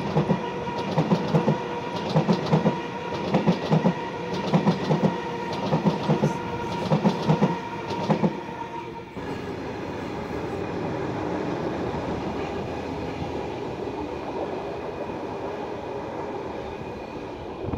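Sydney Trains Tangara double-deck electric train running past at close range, its wheels clicking over rail joints in an even clickety-clack. About nine seconds in, the clicking stops and only a steady rumble is left as the train draws away.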